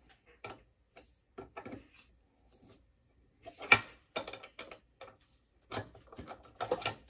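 Small bench vise being tightened hard on a round metal part: a string of scattered metal clicks and knocks, with one sharp knock about halfway through.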